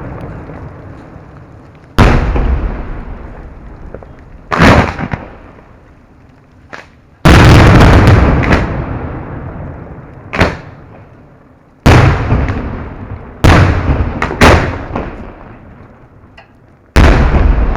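Fireworks display: a series of about ten loud, sudden booms from exploding firework shells, spaced one to three seconds apart. Each boom dies away slowly in a long rumbling echo, and a couple of smaller pops come between them.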